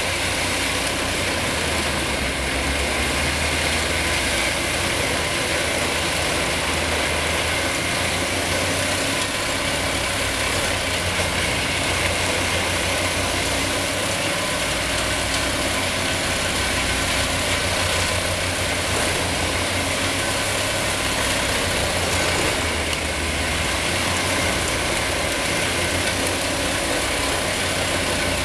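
Large truck-mounted wood chipper chipping a whole tree. Its engine runs under load with a low hum, under a continuous grinding, rattling noise from the cutting drum shredding trunk and branches. The sound stays loud and steady throughout.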